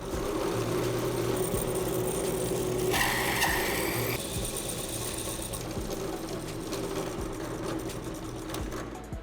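An electric power tool's motor running steadily with a hum, with a higher-pitched sound for about a second around three seconds in.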